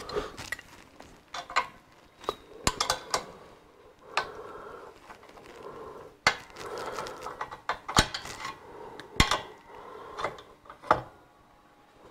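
Steel wrench clinking against the nuts and body of a metal drill-sharpening jig as its M10 pivot bolt's lock nuts are tightened: several sharp metallic clinks a second or so apart, with softer rubbing between them.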